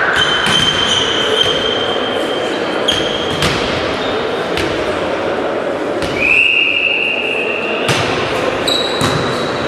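A volleyball bouncing and thudding on a sports-hall floor, each knock echoing in the large hall, over players' chatter. Two long, high, steady tones also sound, the louder one for about two seconds near the middle.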